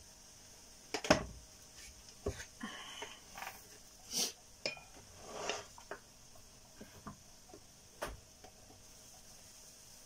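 Kitchenware knocking and clinking: a sizzling plate set down on its wooden board, then a wooden spatula and chopsticks handled by it, in scattered separate knocks, the loudest about a second in.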